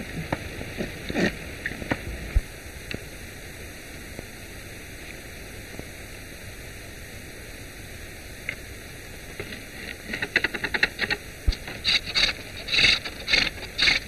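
Wood being worked with a hand tool: a few scattered knocks at first, then rapid scraping, cutting strokes near the end. All of it sits over the steady hiss of an early 1930s optical film soundtrack.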